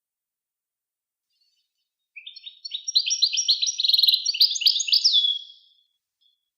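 A songbird singing one song phrase of quick, repeated high sweeping notes that end in a downward slurred note. The phrase starts about two seconds in and lasts about three and a half seconds. It is a recorded song style used to tutor captive songbirds.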